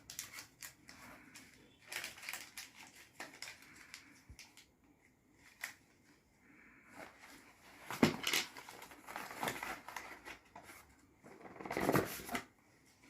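Scattered rustles and taps of a product box and its packaging being handled, with two louder rustling scrapes, one about two-thirds of the way in and one near the end.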